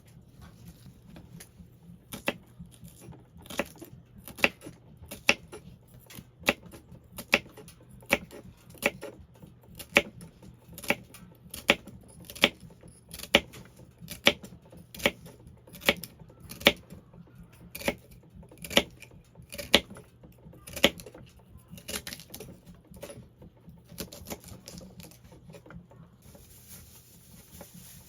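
A knife chopping on a cutting board: sharp, evenly paced strokes a little over one a second, which grow fainter about three quarters of the way through.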